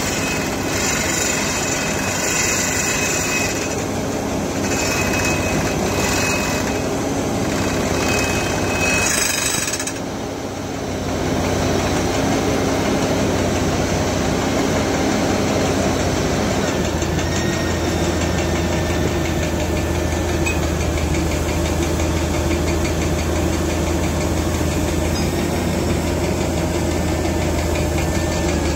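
Furukawa HCR1500ED-N hydraulic crawler drill rig running steadily while drilling a blast hole: a continuous mechanical din of engine and drill. The noise dips briefly about ten seconds in, then settles from about seventeen seconds into a steadier sound with a deeper hum.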